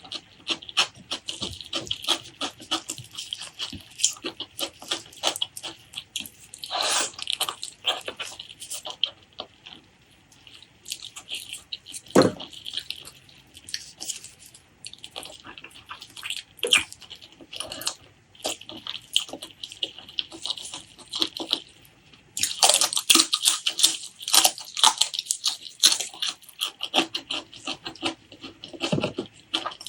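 Close-miked wet chewing and lip-smacking of someone eating spicy pork leg curry with rice: a steady run of short sticky clicks and smacks, with a brief lull about ten seconds in.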